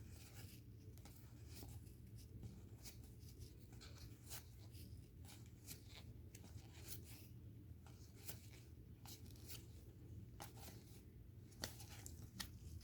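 Faint, irregular clicks and rustles of trading cards being handled and slid through a stack, over a low steady hum, with a slightly sharper click near the end.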